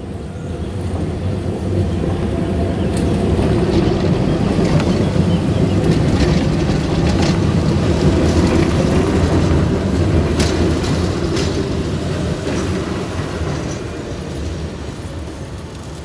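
A tram passing close by: a low rumble that swells to a peak midway and fades away, with a run of sharp clicks from the wheels on the rails while it is nearest.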